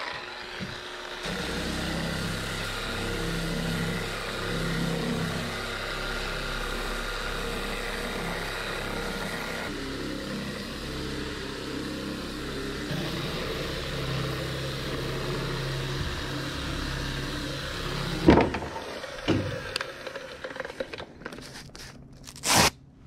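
Electric random orbital sander with a 220-grit disc, turned down to just under 3,000 RPM, running steadily while sanding primer on a fibreglass boat deck, its pitch wavering a little as it is pushed over the surface. It stops about 18 seconds in, followed by a sharp knock and a few handling clicks and bumps.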